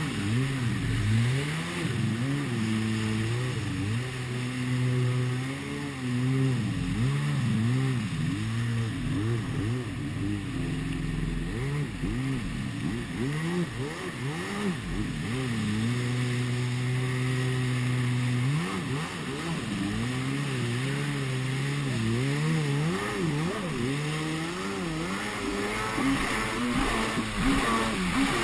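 Yamaha WaveBlaster 701 jet ski's two-stroke twin engine, revving up and down over and over, with two stretches held steady at high revs, under rushing water spray and wind noise.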